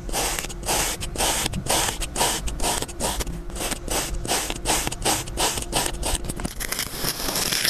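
Kinetic sand being sliced with a plastic knife: a quick, even run of crisp crunching scrapes, several strokes a second, as the blade cuts repeatedly through the packed sand.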